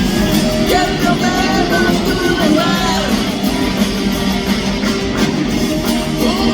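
Live rock band playing at full volume: electric guitars, bass and drums, with a singing voice over them.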